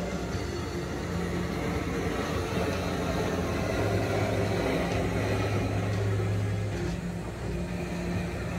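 A machine running steadily with a low hum that grows stronger for a few seconds in the middle.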